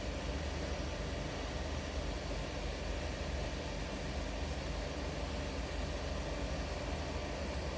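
Steady whir and hiss of a fan, with a constant low hum underneath.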